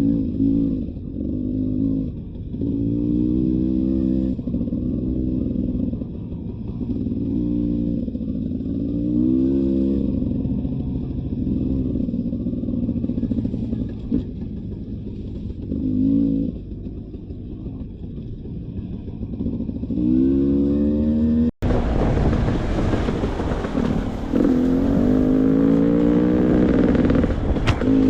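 Beta 300 RR two-stroke dirt bike engine revving up and falling back over and over, the throttle opened and shut in short bursts. About three quarters of the way through the sound cuts briefly and comes back with more rushing hiss over the engine.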